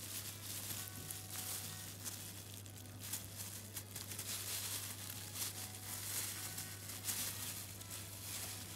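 Thin plastic food-prep gloves crinkling and rustling in quick, irregular ticks as fingers press cheese into a hollowed jalapeno, over a steady low hum.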